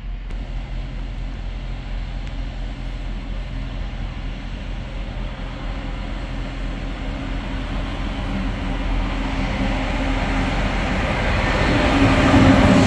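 Intermodal freight train carrying lorry semi-trailers rolling steadily past, a low rumble with a steady hum under it. From about nine seconds in, a Frecciarossa high-speed train comes along the near track and the sound swells into a loud rushing rise, loudest at the end.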